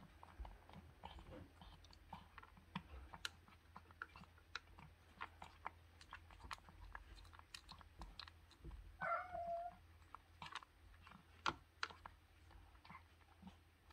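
A calico cat eating from a plastic bowl: faint, irregular chewing and smacking clicks. One short cat vocalization comes about nine seconds in.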